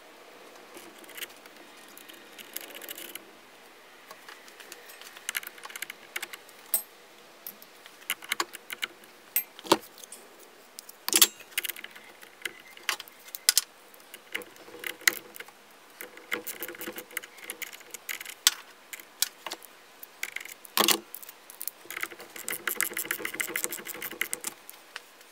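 Metal hand tools and copper cable ring terminals clinking and clicking against a car battery's terminals as heavy cables are fitted, with several sharper knocks. Near the end comes a dense run of quick clicks.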